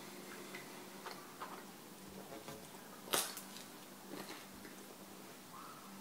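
A person chewing a mouthful of pizza, with faint small mouth clicks, and one short, sharp noise about three seconds in that is the loudest thing heard.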